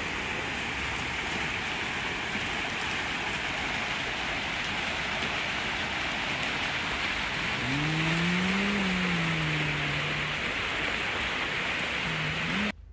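Steady rushing and splashing of a stone fountain, water spilling over the rim of its basin into the pool below. Near the middle a short low voice-like hum rises and falls, and the sound cuts off suddenly just before the end.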